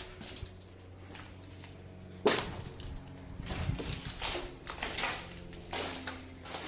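Footsteps crunching and scuffing over broken glass and debris on a hard floor, with a sharp crack about two seconds in and a run of knocks through the second half.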